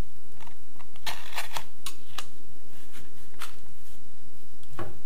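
Wide adhesive tape being cut with a utility knife and handled: a run of short crackles and clicks, then another click, and a dull knock near the end.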